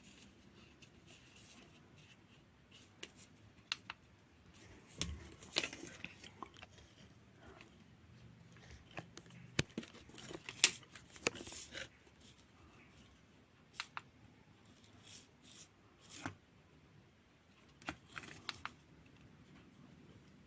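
Packaging from a new fan being handled and opened: scattered sharp clicks and short bursts of rustling and tearing, with the sharpest click about ten and a half seconds in.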